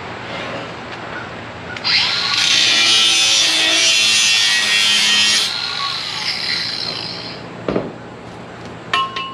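Angle grinder with a cutoff wheel spinning up about two seconds in and cutting through steel angle iron for about three and a half seconds, a loud high-pitched whine with a hissing scream, then winding down. Near the end come a few sharp metal clinks and knocks.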